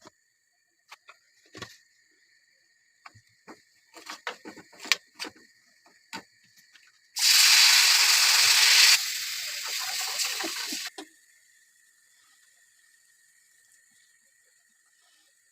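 Kitchen tap running for about four seconds, loud at first and then quieter, before it is shut off abruptly; light clicks and knocks of utensils come before it.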